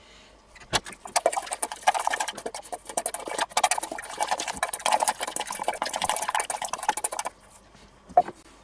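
Dry ground spice mix being swirled and worked around in a small stainless-steel bowl: a dense, continuous rattling hiss of granules against the metal for about six seconds. A sharp click of the bowl sounds just under a second in and another near the end.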